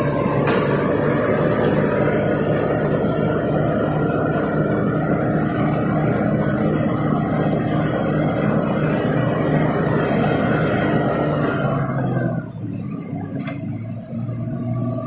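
Crawler bulldozer's diesel engine running steadily as the machine travels, loud until about twelve seconds in, when the sound drops off and carries on quieter.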